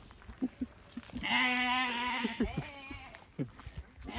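A sheep bleats once, a drawn-out wavering bleat about a second long, starting about a second in.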